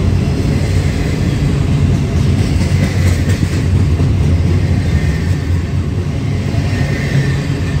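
Double-stack container train rolling past close by: a steady, loud rumble of freight car wheels on the rails.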